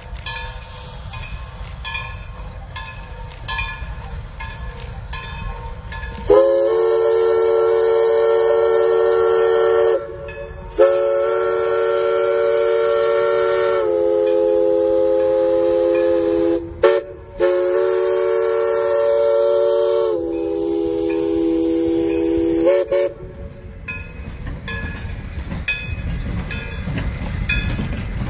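East Broad Top three-foot-gauge steam locomotive approaching with its bell ringing at an even beat. About six seconds in, its chime whistle sounds four long blasts with short breaks, the pitch dropping a little on the later blasts. After that the train rumbles past, with the bell still ringing.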